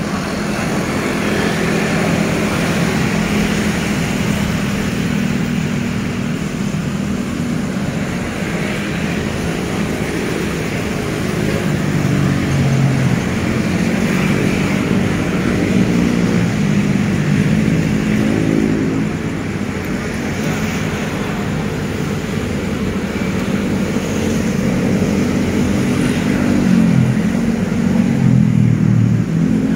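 Steady road traffic, with cars and motorcycles running past and a low engine hum that rises and falls.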